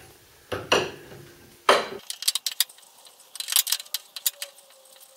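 Hand tools working a nut on the front suspension of a VW T3 bus: two sharp knocks, then from about two seconds in, runs of quick metallic clicks from a ratchet spanner as the nut is worked loose.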